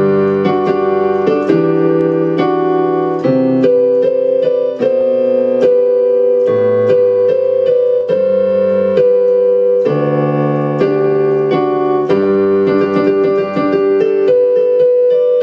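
Electronic keyboard on a piano sound playing sustained chords with a melody over them, without singing, as the song's closing instrumental passage.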